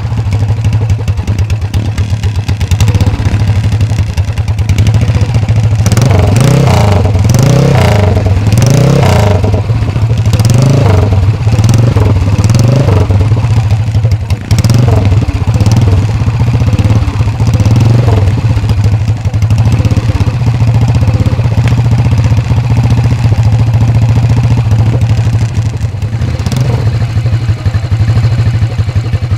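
Vintage CCM four-stroke single-cylinder motocross bike running, its throttle blipped so the revs rise and fall again and again for about ten seconds, then settling back to a steady idle.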